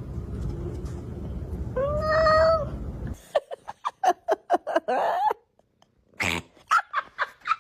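A cat gives one drawn-out meow about two seconds in, over a low rumbling background. It is followed by runs of short, sharp sounds in quick succession, about four or five a second.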